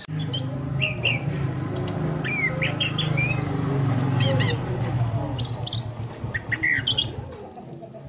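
Chestnut-capped thrush (anis kembang) calling: many short, quick chirps and whistled notes, some rising and some falling, over a steady low hum.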